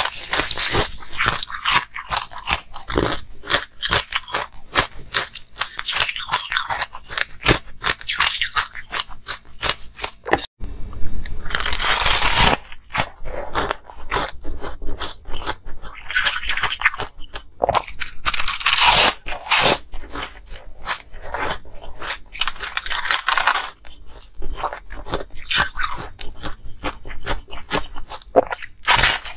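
Close-miked crunching of ice being bitten and chewed: dense runs of sharp cracks and crackles, with a brief break about ten seconds in.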